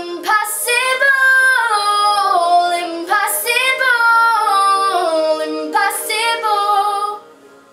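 A girl singing solo in long phrases whose pitch bends and slides through runs of notes. She breaks off about seven seconds in, leaving only faint backing music.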